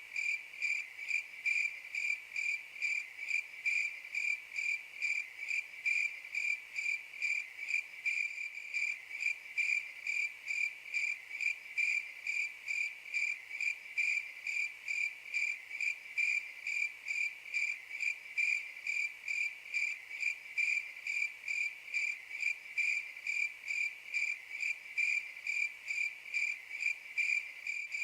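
Crickets chirping in a steady, even rhythm of about three high-pitched chirps a second: the 'crickets' sound effect that stands for awkward silence.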